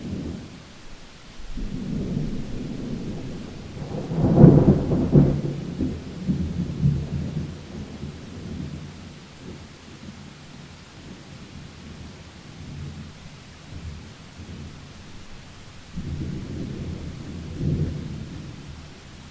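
Thunderstorm: steady rain with rolling thunder. A loud peal about four seconds in rumbles away over a few seconds, and a second, softer rumble comes near the end.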